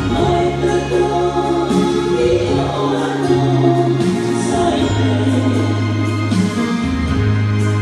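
A choir singing a slow hymn-like song in harmony, with low sustained notes underneath that change every second or two.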